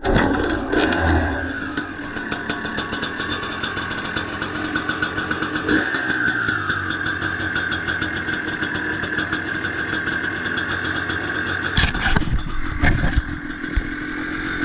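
2006 KTM 300 XC-W's single-cylinder two-stroke engine running on its first start after a full rebuild (new crank, bearings, piston and rings), with two short blips of the throttle near the end.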